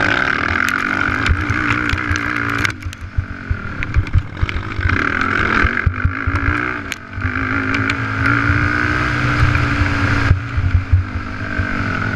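Race ATV engine heard onboard, revving hard under throttle with brief drops off the throttle near 3 s and again around 7 s, over rushing wind and the clatter of the quad over the dirt track.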